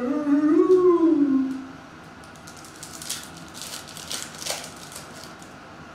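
A man's voice holding a long, wavering, wordless tone for about two seconds. Then comes a burst of crinkling and tearing as a foil trading-card pack wrapper is ripped open.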